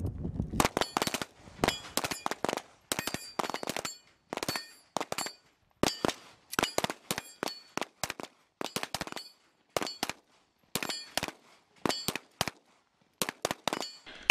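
Handgun shots on an outdoor range, fired one after another at an uneven pace, often two in quick succession. Many shots are followed by a short, high metallic ring.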